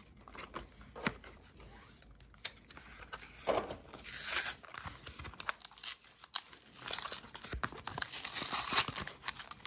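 The packaging of a Pokémon trading card four-pack being torn open and crinkled by hand, in irregular rustles and rips. The rips are louder about three and a half seconds in and again near the end.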